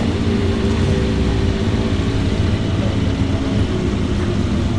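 The Ferrari 275 GTB/4's four-cam V12 running at low revs as the car rolls slowly past, a steady, even exhaust note.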